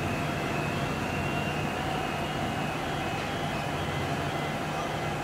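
X'trapolis 100 electric multiple-unit train running slowly into the platform: a steady rumble of the train with faint steady whining tones above it.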